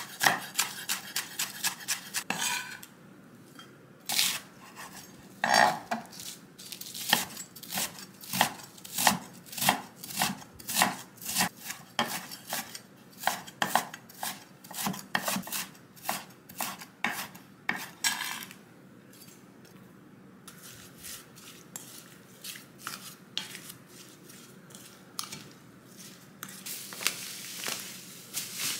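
Chef's knife chopping on a wooden cutting board, green onion at first in quick strokes, then a steady rhythm of about two cuts a second. Near the end, a wooden spoon stirring and scraping a mixture in a glass bowl.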